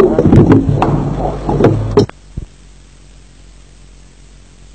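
Muffled hall sound with a few sharp knocks and clicks, cut off abruptly about two seconds in. The end of an old video-tape recording, followed by steady tape hiss.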